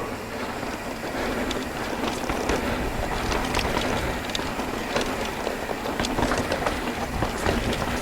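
Mountain bike rolling down a rocky trail, its chain and parts rattling with many sharp clicks and knocks over a steady low rumble.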